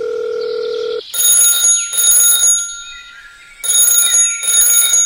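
A steady electronic beep for about the first second, then a high electronic ringing like an alarm or phone bell, sounding in two pairs of short bursts.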